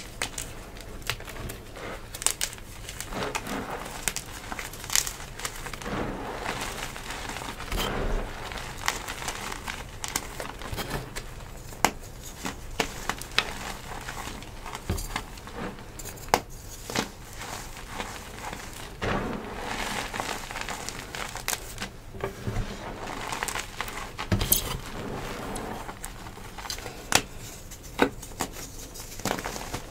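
Hands crushing and crumbling chunks of dyed gym chalk: a steady run of dry crunching and crackling, dotted with sharp cracks as pieces break.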